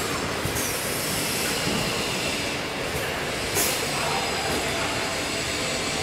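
Automatic glass bottle washing machine running: a steady mechanical clatter and rumble of its conveyor together with the hiss of water spraying inside the washing stations. A brief, sharper hiss stands out about three and a half seconds in.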